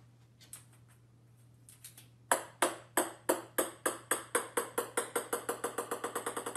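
A small ball bouncing on a hardwood floor. After a few faint taps, sharp ringing bounces start about two seconds in and come faster and faster while growing quieter as the ball settles.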